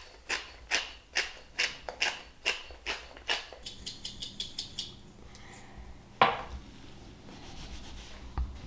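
Hand-twisted spice grinder cracking coarse salt and peppercorns, a gritty click with each twist: about two and a half clicks a second for the first three seconds, then quicker for a second or so. A single knock about six seconds in.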